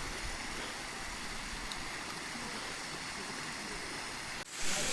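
Steady rushing noise, with an abrupt cut to a similar noise about four and a half seconds in.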